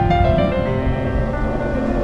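Background music of slow, held notes over a low rumble.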